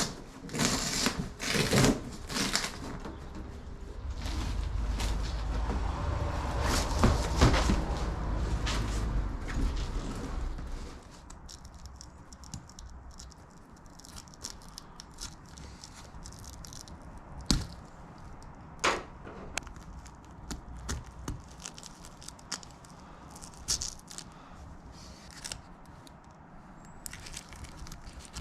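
The rear-screen zip on an MG TF soft top being undone, with the old plastic screen and hood fabric rustling and crackling as they are handled, plus scattered clicks and knocks. A louder low rumble runs for several seconds in the first part, then handling noise continues more quietly.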